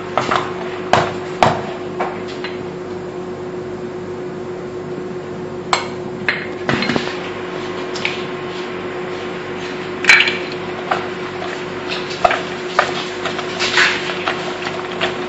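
Wire whisk knocking and clinking against the side of a stainless steel bowl while thick chocolate brownie batter is whisked, in irregular strikes with one sharper knock about ten seconds in. A steady low hum runs underneath.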